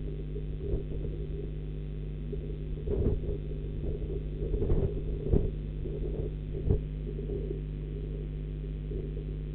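Steady electrical hum from the webcam's audio line, with a few brief knocks in the middle.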